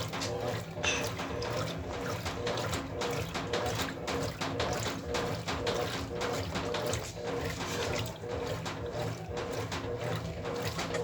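Brastemp Ative 9 kg BWL09B top-loading washing machine in its wash cycle: water sloshing and splashing irregularly over a steady low motor hum.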